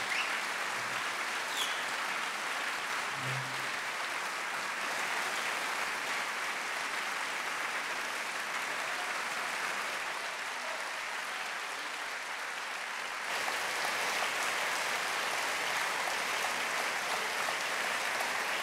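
Audience applauding steadily, the clapping getting louder about thirteen seconds in.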